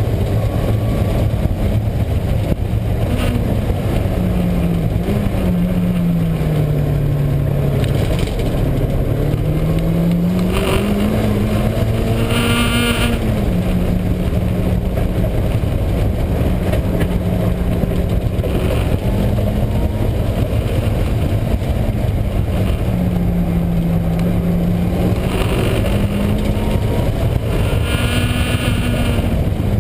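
Mazda Miata driven on track: steady engine and road rumble with a droning tone that rises and falls with speed, the sound of a failing wheel bearing. A few brief higher-pitched noises come and go partway through.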